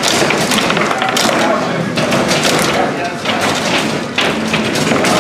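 Foosball being played on a FABI Torino table, with repeated sharp knocks and thuds as the ball and rod men strike, over loud chatter from people in the room.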